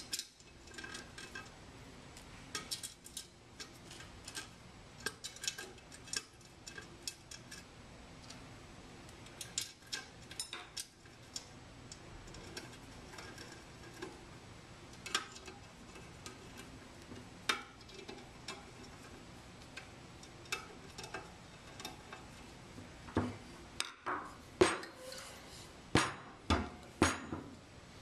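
Small metal screws and a screwdriver clicking and clinking on the stainless-steel cover plate of an automatic sampler's housing. Near the end comes a quick run of louder metal knocks as the sheet-metal cover plate is handled.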